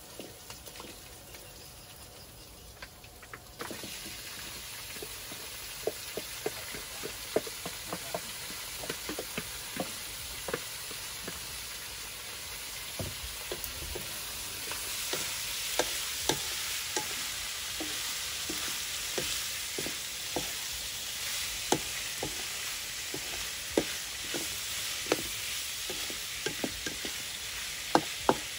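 Food sizzling as it fries in a pan, with a utensil stirring and knocking against the pan many times. The sizzle starts abruptly a few seconds in and grows louder about halfway through.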